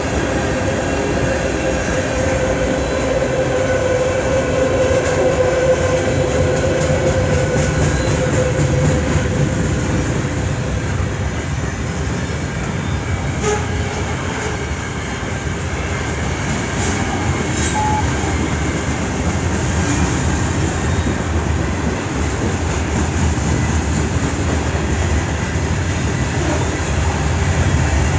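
CN freight train rolling past, a steady rumble of wheels on rail. A single held tone sounds over it for the first ten seconds or so and then fades away.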